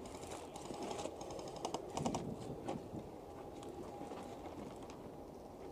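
Airsoft guns firing at a distance: scattered light sharp snaps, a few coming in quick runs of three or four near the middle.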